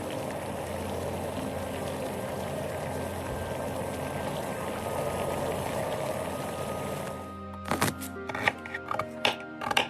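Background music over a steady hiss, then a quick run of about seven sharp knocks over the last two seconds.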